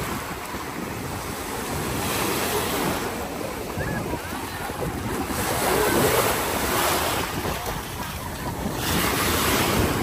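Sea waves washing and breaking, rising and falling in surges every couple of seconds, with wind buffeting the microphone.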